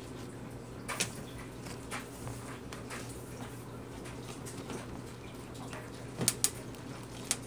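Hands kneading and pressing bead-filled slime against a tabletop: soft sticky clicks and pops, a louder one about a second in and a few more near the end, over a steady low hum.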